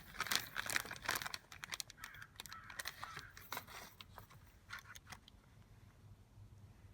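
Handling noise as a rivet is worked into a hole punched through a climbing skin's fabric and tail-clip strap: a run of irregular small clicks, scrapes and crinkles that dies away about five seconds in.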